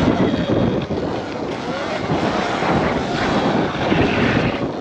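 Wind buffeting the microphone over the sound of a Sur-Ron electric dirt bike being ridden.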